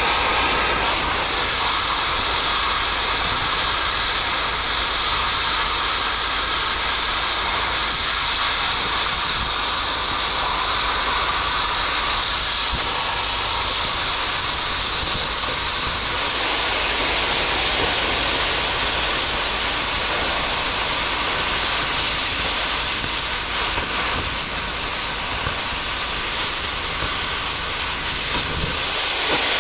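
Cutting torch hissing steadily while it cuts through steel, with a short change in the hiss just past halfway.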